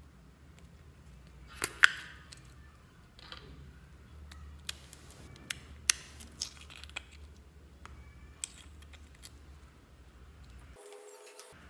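Hard plastic bow-shaped toy container being pried open and handled: a series of sharp plastic clicks and snaps, the loudest about two seconds in, with several more scattered through the middle.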